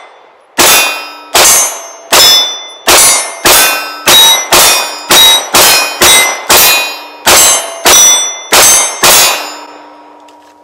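Pistol fired about fifteen times at a steady pace of roughly two shots a second, each shot followed by the ringing of hit steel targets. The last ring hangs on for about a second after the final shot.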